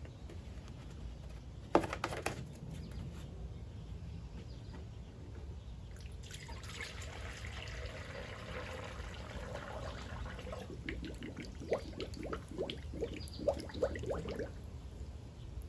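Antifreeze coolant being poured into a radiator filling funnel: a single knock about two seconds in, a steady pour from about six to ten seconds, then a run of glugs and bubbles as the liquid goes down. The radiator is being topped up to burp trapped air out of the cooling system.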